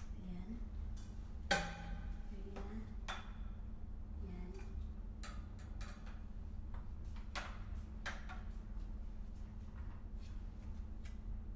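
Metal tubes and fittings of a single-pole garment rack knocking and clicking together as it is assembled by hand. The loudest is a ringing metallic clank about a second and a half in, followed by scattered lighter clicks, over a steady low hum.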